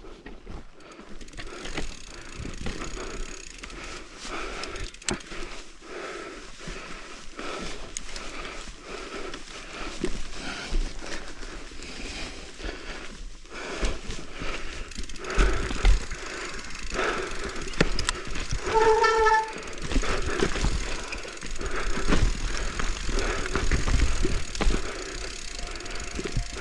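Mountain bike riding down a rough trail: tyre rumble over dirt and roots, with constant rattling and clattering of the bike, growing louder and rougher in the second half. A brief squeal is heard about two-thirds of the way through.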